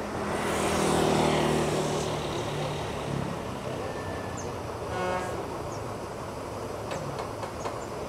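Intercity coach's diesel engine idling with a steady low hum that swells louder about a second in, and a short horn toot about five seconds in.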